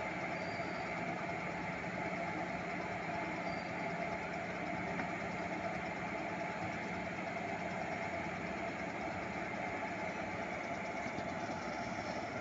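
Twin Indian diesel locomotives with ALCO 251 V16 engines idling steadily at a standstill, a rough truck-like idle.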